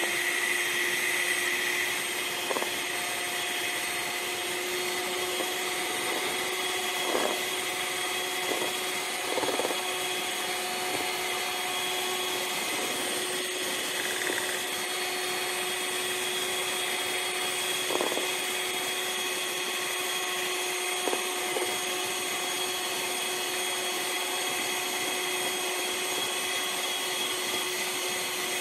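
Electric mixer beating whipping cream made from whipping powder and milk, its motor running with a steady whine. There are a few light knocks along the way.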